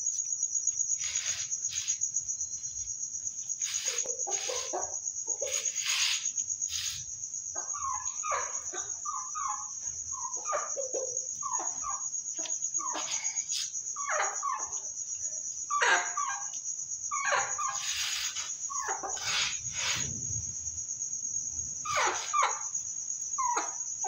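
Chickens clucking in many short calls, over a steady high-pitched chirr of crickets. A few brief sharp scratchy noises come between the calls.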